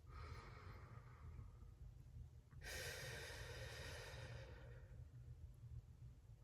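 A woman breathing faintly: a soft breath in, then a long breath out or sigh starting about two and a half seconds in and lasting about two seconds.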